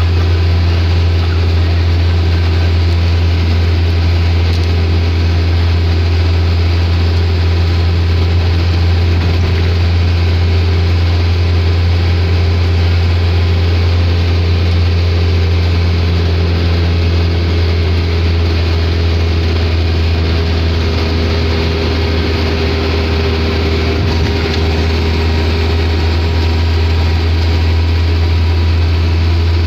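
Steady engine and road drone heard inside a minibus cabin while it cruises at an even speed, a strong low hum with no change throughout.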